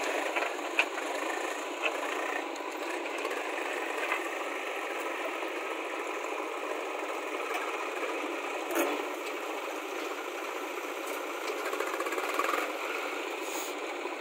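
Diesel engines of a JCB backhoe loader and a Swaraj 735 FE tractor running steadily while the backhoe digs soil, with a few short knocks and clanks.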